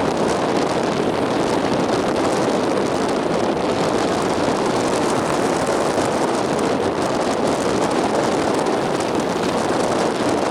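Steady rushing noise of strong wind and rough sea, with no change in level.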